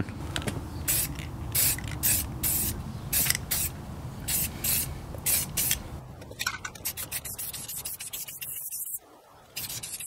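Aerosol can of black Rust-Oleum gloss protective enamel spraying in short hissing bursts, about two a second, as a last coat of paint goes on; the bursts stop about six seconds in.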